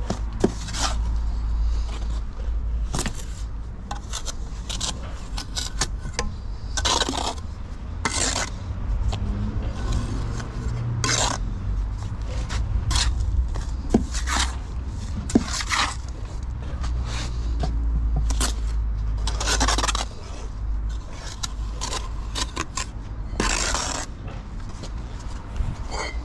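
Steel brick trowel scraping and clinking on mortar, the mortar board and bricks during bricklaying, in irregular strokes of varying length with a few sharp taps, over a steady low rumble.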